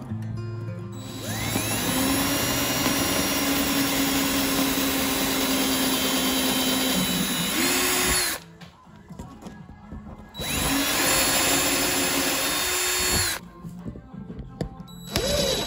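Power drill boring into a small round of branch wood, in two runs of several seconds: the motor winds up to a steady whine that steps up in pitch just before the first run stops. A short burst of the drill follows near the end.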